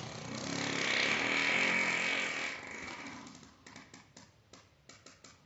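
A person making a long, harsh, buzzing noise with the voice right at the microphone. It swells and then fades out after about three seconds, followed by a string of faint crackles.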